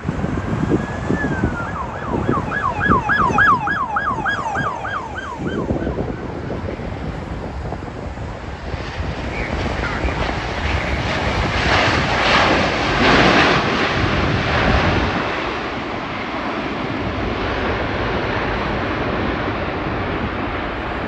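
Jet engines of an Asiana Airlines Airbus A350 on landing. The rush of engine noise builds, is loudest about twelve to fourteen seconds in, then settles lower as the aircraft rolls out, with wind buffeting the microphone throughout. Near the start, a rapid run of about ten falling whistled notes.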